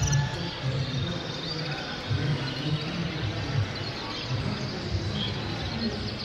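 Many caged canaries chirping and twittering in short, high calls, over a low murmur of voices.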